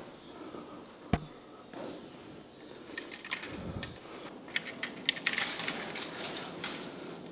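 Metal clicks and rattling from a collapsible steel scissor gate and the padlock hanging on it being handled: one sharp click about a second in, then a quick run of light clinks and rattles through the second half.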